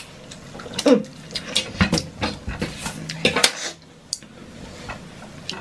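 A fork and silicone spoons scraping and knocking against an electric griddle pan while stirring a heap of pasta and stringy melted cheese: a string of irregular clicks and scrapes.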